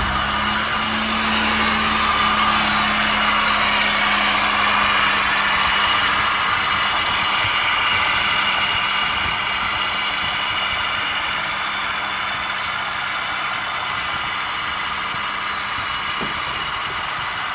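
2006 Chevy Malibu 3.5 L V6 idling with a steady whirring squeal from the accessory drive, easing slightly over time: the sign of a worn water pump bearing.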